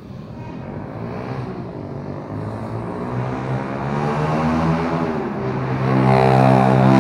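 Motor vehicle engine approaching, a droning hum that grows steadily louder, its pitch dipping slightly about four to five seconds in and then holding steady as it comes closest near the end.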